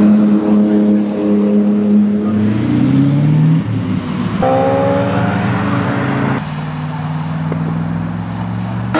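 Sports car engines in short edited clips: a steady engine note that rises as the car accelerates, a sudden cut to another engine climbing in pitch, and another cut to a steady engine note as an AC Cobra replica kit car drives along the circuit.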